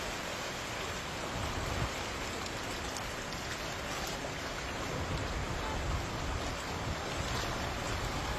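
Steady rushing and splashing of deep floodwater on a street as cars push through it, with a low rumble underneath.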